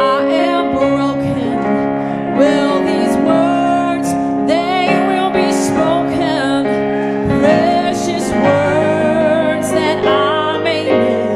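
Singing with piano accompaniment: long held notes with vibrato over sustained chords.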